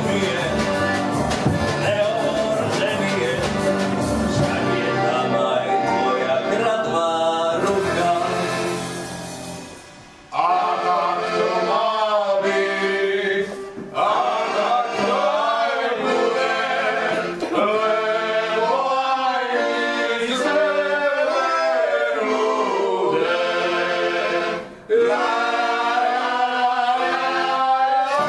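A live song: a male singer on a microphone with a small band of piano, double bass and accordion. About ten seconds in the band fades away and singing voices carry on with little accompaniment, breaking off briefly twice.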